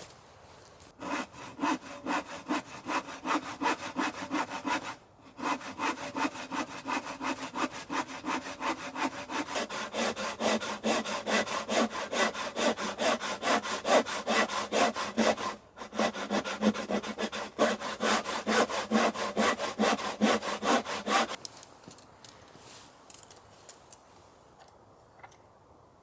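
Rhythmic back-and-forth rasping strokes, several a second, with a faint ringing pitch underneath, starting about a second in and stopping about 21 seconds in, with two brief pauses.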